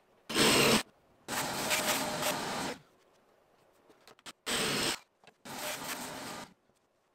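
Wood scraping and sliding across a wooden workbench top, twice over: a short loud scrape followed by a longer, quieter sliding rub.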